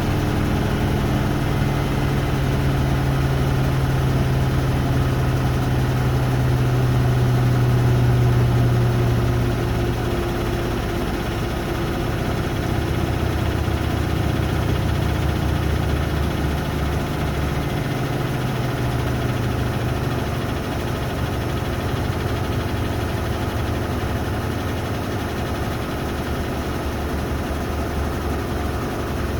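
Washing machines, a Hoover Nextra Iconic and a Beko WDER, in their 1400 rpm final spin: a steady machine hum with a low drum-and-motor tone. About ten seconds in, the strongest low tone fades and a lower one takes over, and the sound gets a little quieter.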